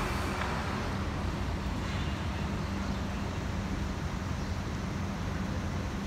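Steady outdoor city ambience of road traffic, with a constant low hum under it.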